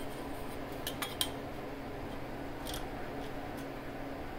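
A workshop heater running with a steady hum. Over it come a few light metallic clicks and taps as a steel rule is handled and set against the machine, a small cluster about a second in and one more near the three-second mark.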